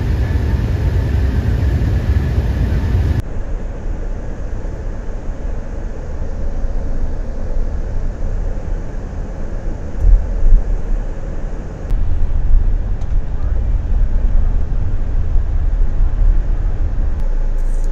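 Low rumble and road noise of a moving vehicle heard from inside the cabin, in several clips that change abruptly about three seconds in and again near twelve seconds. A few louder low bumps come about ten seconds in.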